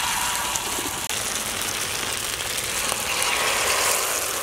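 Egg and potato omelette batter sizzling steadily as it is poured onto a hot, oiled iron tawa.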